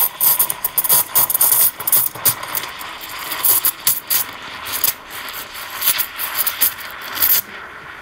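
Valexia espresso machine's steam wand hissing and sputtering in a pitcher of milk, with rapid irregular crackles as its tip draws air in to froth the milk. Near the end the crackling stops abruptly and only a much quieter sound remains.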